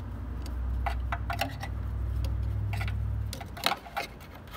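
Scattered light plastic clicks and taps as a hand works a replacement headlight bulb into place through a cramped gap in the front end, over a low rumble that stops about three seconds in.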